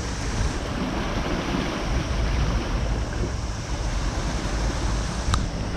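Steady sea and wind noise: waves washing on the shore with wind rumbling on the microphone. A single brief click sounds near the end.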